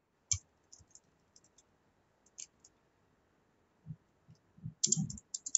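Computer keyboard keystrokes: a few scattered taps, then a quicker run of several near the end.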